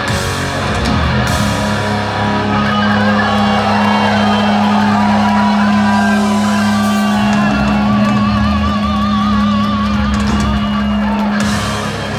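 Live hard rock band playing loud in a large hall, heard from the crowd: electric guitars and drums over a long held low note, with a lead guitar line bending in wide vibrato in the second half.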